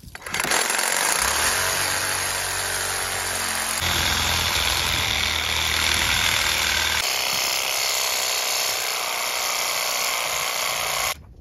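Cordless reciprocating saw running steadily with its blade inside the bronze shaft log, sawing a lengthwise slit in the old cutlass bearing. The sound shifts twice along the way and cuts off suddenly near the end.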